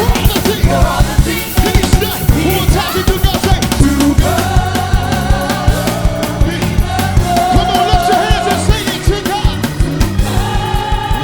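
Live gospel worship band playing an uptempo groove with busy, fast drum-kit strokes and bass, and held vocal or keyboard lines above.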